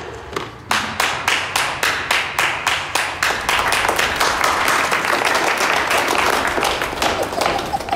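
A small group of people clapping, with one steady clap about three times a second running through it. The applause fills in through the middle and thins out near the end.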